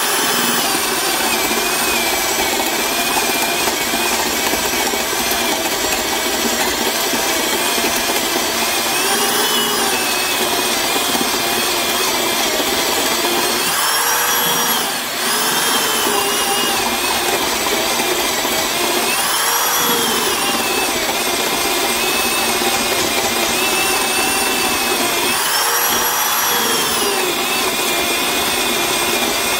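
Porter Cable 7514 half-inch drill running continuously, boring a dull 1.5-inch spade bit into wood under heavy hand pressure. The motor whine rises and falls in pitch a few times as the load changes, with a brief dip about halfway, and the drill keeps cutting without bogging down.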